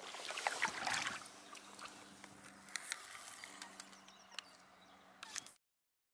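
Kayak paddle blade dipping and pulling through calm water, with splashes and dripping that are strongest in the first second, then softer scattered drips and small clicks over a faint steady hum. The sound cuts off suddenly near the end.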